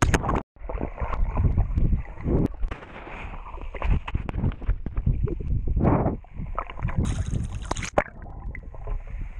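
Muffled underwater sound picked up by a GoPro in its waterproof housing, after a splash as it goes under about half a second in: dull gurgling, bubbling and irregular thuds of water moving around the housing as a swimmer moves close by. A short hiss comes about seven seconds in.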